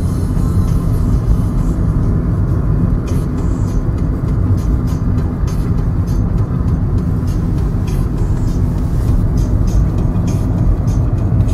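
Steady low rumble of a car's engine and tyres heard from inside the cabin while driving along a road, with faint irregular ticking from about three seconds in.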